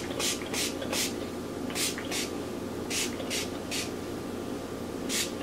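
Pump spray bottle spritzing onto hair in quick pumps: about nine short sprays in irregular groups of two or three.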